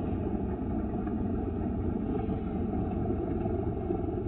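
Extra EA-300LC aerobatic plane's piston engine and propeller on landing, heard as a steady, dull low rumble with no high end, slowed down along with the slow-motion picture.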